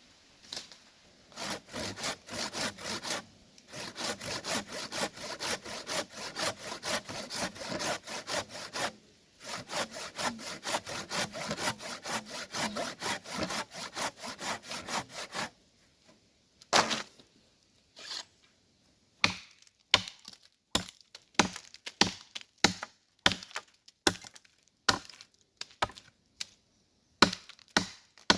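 Wood being cut with a hand saw in quick back-and-forth strokes, about four a second, broken by two short pauses. About halfway through the sawing stops and gives way to single sharp chopping blows on wood, roughly one a second.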